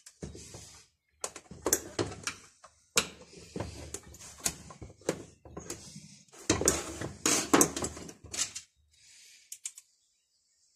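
A screwdriver and the plastic housing of a dismantled chainsaw handled on a steel workbench: irregular clicks, knocks and rattles, busiest about two-thirds of the way through.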